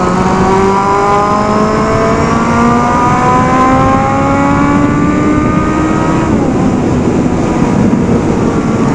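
Kawasaki Z750 inline-four engine pulling under acceleration, its pitch rising steadily, with heavy wind rush over the microphone. About six seconds in the engine note drops away as the throttle closes, leaving mostly wind noise.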